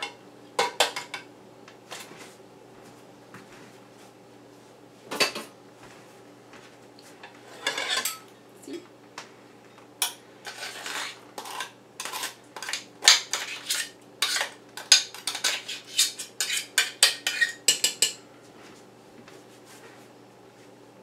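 Metal spoon scraping and clinking against a stainless steel food mill and saucepan, clearing the last of the apple pulp out of the mill. A few scattered clinks at first, then a quick run of scraping and tapping from about ten seconds in that lasts around eight seconds.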